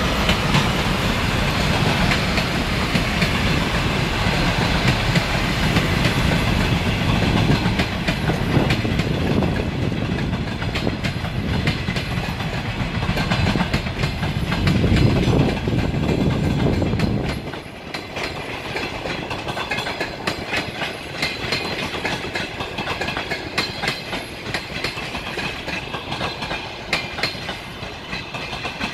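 A TEP70 diesel locomotive's engine running as it passes, followed by passenger coaches rolling by with wheels clattering over the rail joints. The heavy low rumble drops away suddenly about two-thirds of the way through, leaving a lighter, rhythmic wheel clatter.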